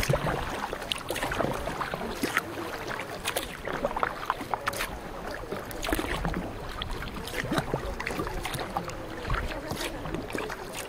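Canoe paddles dipping and splashing in the water, with many small irregular splashes and drips over a steady wash of water.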